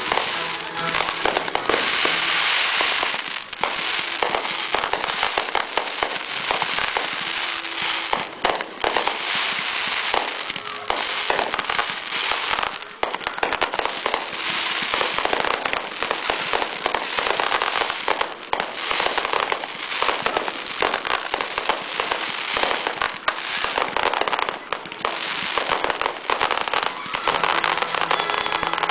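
Aerial fireworks going off in a dense, unbroken barrage: many sharp reports and crackling bursts every second, overlapping one another with no pause.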